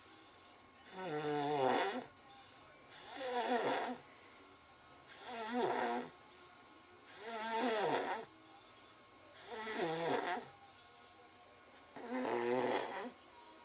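A sleeping young child snoring: six snores at an even pace, one about every two seconds. Each snore lasts about a second and has a wavering pitched tone.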